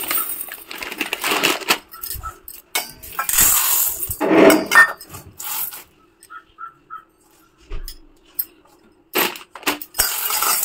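Someone eating crunchy food, most likely spicy puffed rice (jhal muri), close to the microphone: irregular crunching bursts, with a quieter stretch in the middle where a faint steady hum is left.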